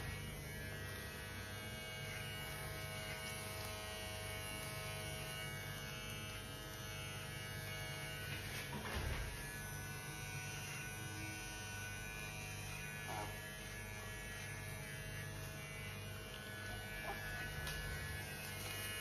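Electric hair clipper running with a steady buzz as it trims hair.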